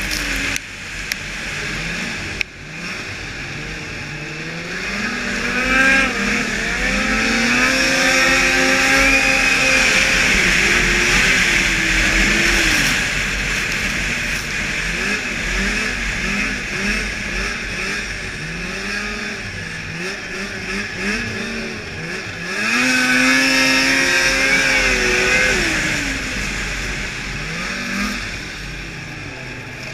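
Snowmobile engine of a 2002 Blade Striker 600 racing at full throttle. Its pitch climbs and falls over and over as the revs rise and drop, with a steady rush of wind and track noise underneath.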